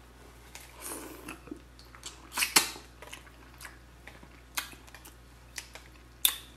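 Crab shells being cracked and snapped apart by hand, a series of sharp cracks with the loudest about two and a half seconds in and another near the end.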